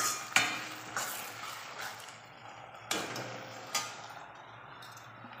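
Metal cooking utensils knocking and clinking against a metal kadhai, about five sharp strikes with short ringing in the first four seconds, over the faint sizzle of the curry in the pan.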